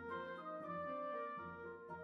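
Background music of sustained, held instrumental notes changing every half second or so, slowly fading out.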